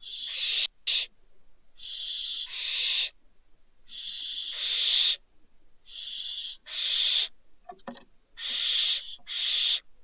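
Barn owls giving harsh hissing calls. Each call lasts about half a second, and they come in pairs about every two seconds. A quick run of clicks comes about eight seconds in.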